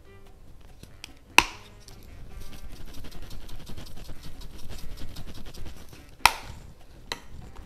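Knife chopping food on a cutting board: a sharp knock about a second and a half in, then a run of quick chops, about five a second, for some four seconds, ending with another sharp knock.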